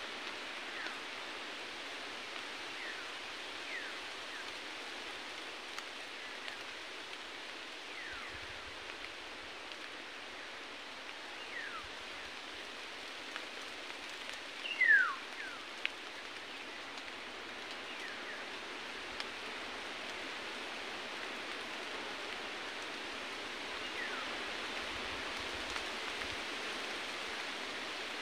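Short whistled bird calls, each falling steeply in pitch, come every few seconds over a steady background hiss of forest ambience; the loudest call comes about halfway through.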